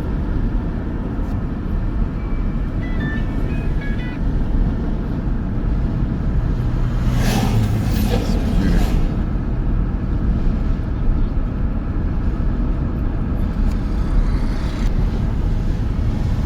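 Steady road and engine noise of a car driving along a highway, heard from inside the cabin. About three seconds in comes a short run of high beeps, and around seven to nine seconds in a louder rushing hiss rises and falls, like another vehicle going past.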